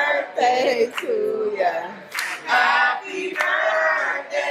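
A group of voices singing a birthday song together in chorus, loud, several voices overlapping.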